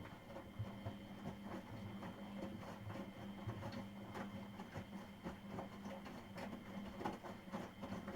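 Miele Professional WS5436 washing machine mid-wash, its drum turning under the motor with a steady hum and whine while the laundry tumbles in a jumble of soft irregular knocks.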